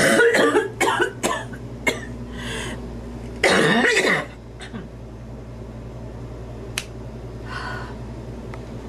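A woman's dry cough, which she blames on allergies: a fit of several coughs in the first two seconds, then a longer cough about three and a half seconds in. A single sharp click follows near the end.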